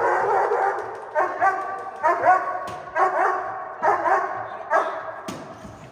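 German Shepherd protection dog barking in a steady series, about one bark a second, during a protection training drill.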